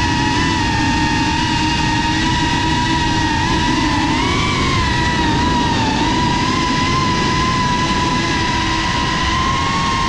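FPV quadcopter's motors and propellers whining steadily, the pitch wavering up and down a little with the throttle.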